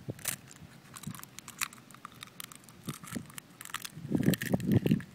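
A raw egg being handled and cracked open against asphalt pavement: scattered small clicks and crackles of shell, then a louder cluster of cracking and crunching about four seconds in.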